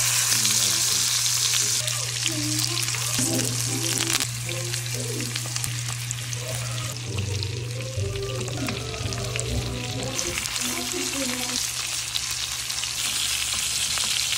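Bone-in ribeye steak sizzling in foaming butter in a pan while a spoon bastes it, with scattered spits and crackles. The sizzle is loudest at the start, eases off, and rises again near the end.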